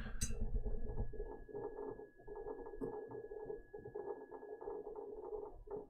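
Mechanical hard drives in a NAS doing a RAID rebuild, with all the drives being read and written at once. A rapid, irregular patter of drive-head seek clicks runs over a steady hum and a thin, high steady whine.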